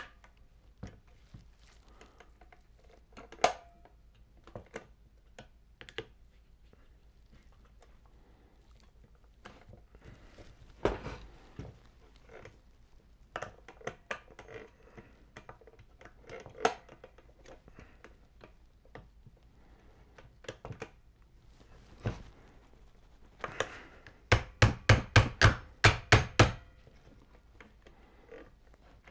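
Tools and biscuit-joiner parts handled on a workbench while working the blade off: scattered knocks and clicks, then a quick run of about nine sharp taps near the end.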